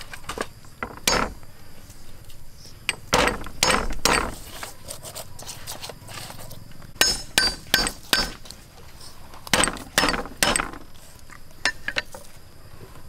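Whole raw fish being rubbed with salt and shifted about in an aluminium tray: a string of wet knocks and slaps, with the metal tray clinking and ringing briefly several times.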